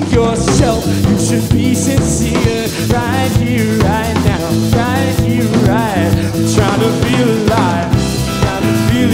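Live rock band playing: drum kit beat, bass and electric guitar, with a melody on top that bends up and down in pitch.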